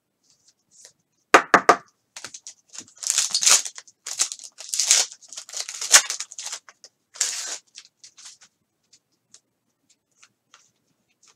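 Foil wrapper of a 2020 Contenders football card pack being torn open and crinkled by hand, in a run of tearing, crackling bursts after a few sharp clicks about a second and a half in. Near the end there are only faint ticks as the cards are handled.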